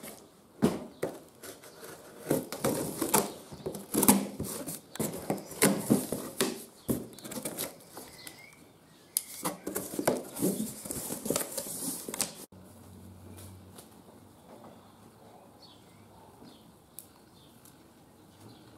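A cardboard box being opened and unpacked by hand: cardboard flaps and packaging rustling, crinkling and scraping in quick irregular bursts. About twelve seconds in it cuts off abruptly to a much quieter stretch with only a few faint handling ticks.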